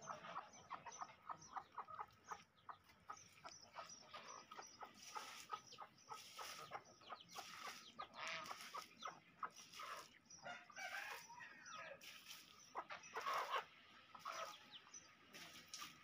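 Flock of Aseel and Shamo gamefowl clucking softly while pecking at feed on gravel, with a quick, uneven run of pecking clicks.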